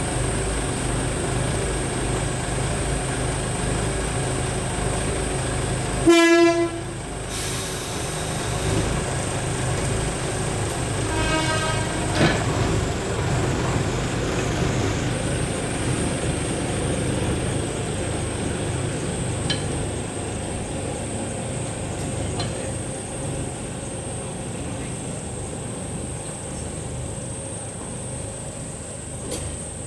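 Ex-Ogoya Railway DC121 small narrow-gauge diesel locomotive running close by, then pulling away so that its engine gradually fades. About six seconds in it gives one short, loud horn blast, and a fainter toot follows about five seconds later.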